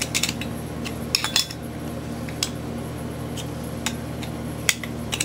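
Scattered metallic clinks and taps, some in quick clusters and others single, as the steel clutch discs and plates of a BMW E30 limited-slip differential are handled against the diff carrier. A steady low hum runs underneath.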